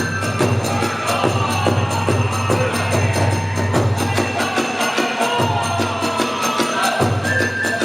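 Kagura festival music: fast, steady drum beats with small hand cymbals jingling and a high bamboo flute line sliding between held notes.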